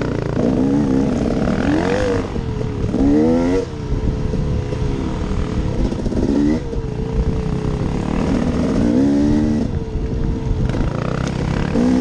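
2015 KTM 250 XC's single-cylinder two-stroke engine revving in repeated short bursts of throttle, its pitch climbing steeply about five times and dropping back between, over a constant low rumble of riding.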